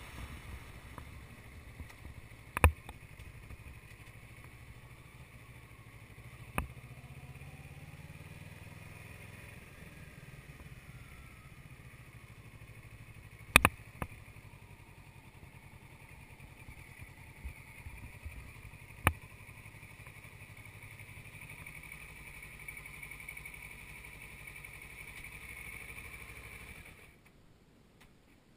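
Sport motorcycle engine running steadily at low speed, broken by four sharp knocks, then cutting off shortly before the end as the bike stops.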